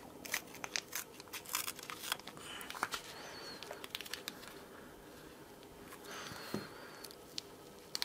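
Masking tape being cut and peeled off a pocket knife's handle, faint crinkling and crackling with many small scattered clicks.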